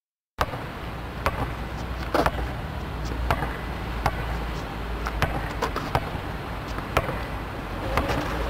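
Basketball being dribbled on outdoor asphalt: sharp bounces roughly once a second, starting about half a second in, over a low steady rumble.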